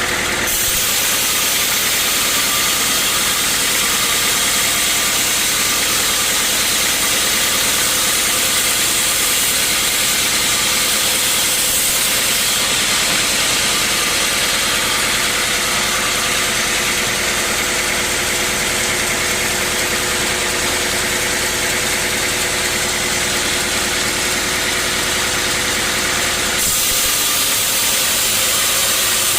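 Sawmill running steadily: engine hum under a dense, loud hiss of the saw cutting through a teak log. The sound shifts slightly about half a second in and again near the end.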